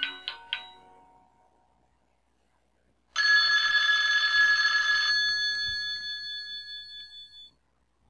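Avaya J179 desk phone's speaker playing ringtone samples: a quick run of about four chime notes at the start that ring out within a second or so. About three seconds in, a bell-like ringing tone sounds steadily for about two seconds, then dies away.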